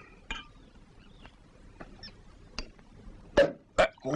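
A sparkling wine bottle being opened: a few small clicks as the top is worked, then a sharp pop about three and a half seconds in, with a second short loud burst just after, as the cork comes out and the wine foams over.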